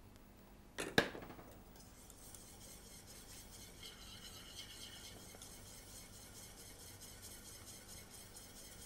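Metal wire whisk stirring sauce in a stainless steel saucepan, a faint, fast, steady scraping with rapid ticks of wire on metal. A sharp metal clink about a second in, a ladle knocking the pan.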